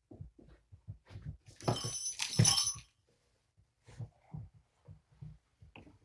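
Household handling noises: scattered soft knocks and rustles, with a louder clattering, clinking rattle about two seconds in that lasts about a second.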